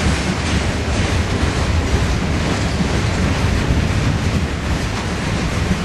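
Norfolk Southern freight train's open-top cars rolling past: a steady, loud rumble of steel wheels on the rails.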